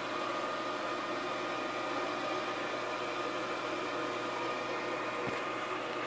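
Steady electrical machine hum with a hiss and a few held tones, unchanging throughout, with a faint knock about five seconds in.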